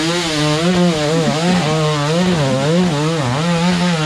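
Dirt bike engine revving up and down over and over, about twice a second, as the rider works the throttle to get the bike up a steep dirt climb.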